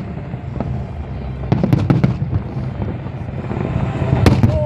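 Fireworks display: sharp bangs and crackles over a continuous low rumble of bursts. There is a cluster of bangs about a second and a half in and the loudest bangs near the end.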